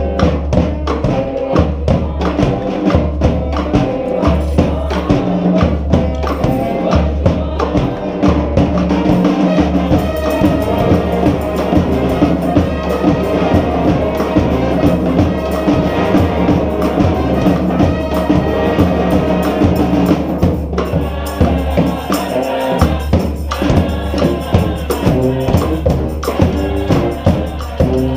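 Brass band playing a New Orleans-style brass band tune: horns over a low stepping bass line, with steady percussion.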